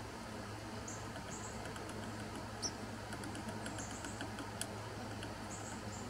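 A downy woodpecker tapping and pecking at bark: sharp light clicks, the loudest about two and a half seconds in and near the five-second mark, with a cluster of fainter taps between them. Short high chirps come a few times, over a low steady hum.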